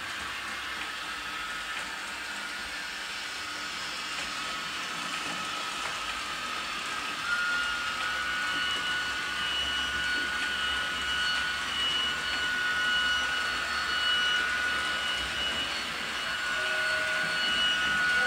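Märklin digital model trains running on the layout track: a steady whirr with a high, even motor whine that comes in about seven seconds in and holds.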